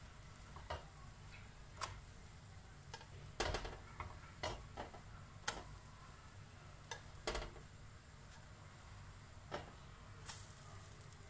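A plastic spatula clicking and tapping against a non-stick frying pan as pancakes are slid under and flipped over: about a dozen light, irregular taps, a few louder ones in the middle.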